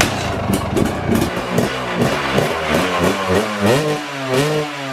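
KTM 250 XC-W two-stroke dirt bike engine kick-started and revved on its stand, its pitch rising and falling in repeated blips. The power valve actuator arm has just been reconnected, and the bike's power is back.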